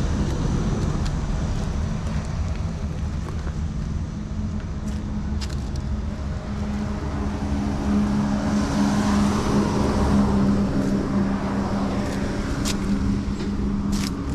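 An engine running steadily with a constant low hum amid road traffic noise, with a few sharp clicks near the end.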